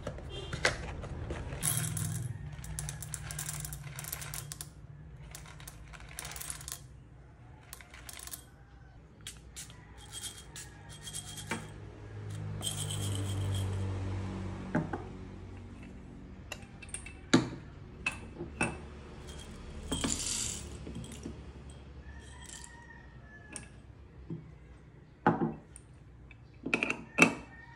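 Whole coffee beans clicking and rattling as they are poured into and handled in a small wooden bowl on a kitchen scale, with rustling of the bean bag; the clicks come in scattered bursts, with a longer run of rattling about halfway through.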